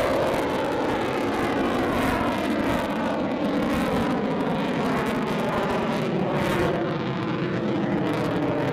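Eurofighter Typhoon's twin Eurojet EJ200 turbofans in full afterburner, a steady jet roar as the fighter climbs away, with faint tones slowly sweeping up and down in pitch through the noise.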